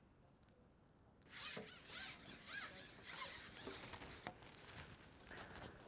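Carbon match-fishing pole sliding over a pole roller, a run of short scraping strokes about two a second that fade towards the end.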